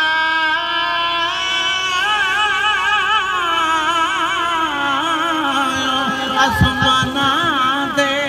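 A man's voice reciting a noha, a Shia lament, in long held notes whose pitch wavers with heavy vibrato, without clear words. A few dull low thumps come about six and a half seconds in.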